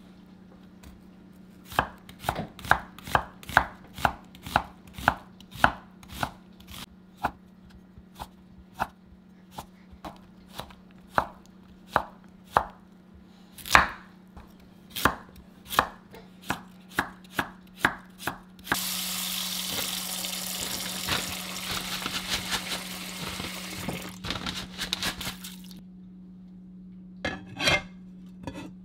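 Chef's knife slicing onion and carrot on a wooden cutting board: a regular series of sharp cuts, roughly two a second, for most of the first eighteen seconds. Then a steady rushing noise for about seven seconds and a few knocks near the end, over a low steady hum.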